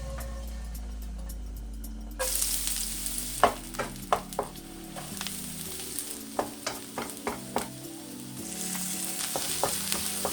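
Ingredients for egg fried rice sizzling in a hot pan as they are stir-fried, with a spatula clicking against the pan a dozen or so times. The sizzle starts suddenly about two seconds in, over background music.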